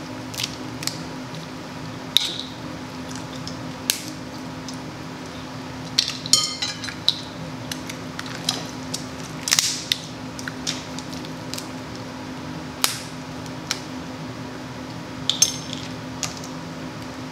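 Crab legs being cracked and eaten: irregular sharp cracks and clicks of shell and of utensils against a plate, with a rattling cluster of cracks about six seconds in.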